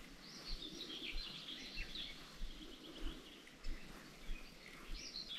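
Faint birdsong outdoors: a bird sings short chirping phrases about half a second in and again near the end, over low background noise with a few soft low bumps.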